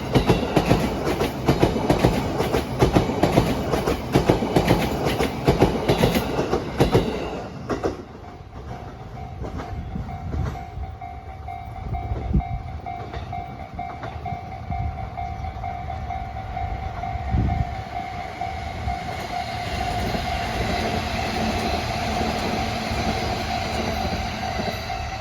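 Train cars rattling and clacking over rail joints as the consist of new Tokyo Metro 2000 series cars hauled by an EF65 electric locomotive rolls past; the clatter stops abruptly about eight seconds in as the last car clears. After that a steady electronic level-crossing warning bell keeps ringing, with a low rumble growing again toward the end.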